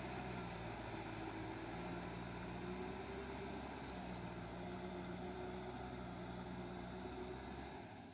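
Kubota M6040SU tractor's diesel engine running steadily as it drives a rotary tiller through flooded paddy mud. The low engine note drops away sharply near the end.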